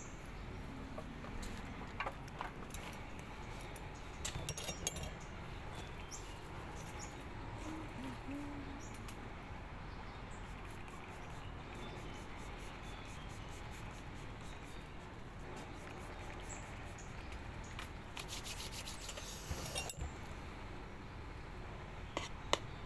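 Steady background hiss, broken by a few scattered sharp clicks and taps. Near the end a metal fork and spoon clink against a plate.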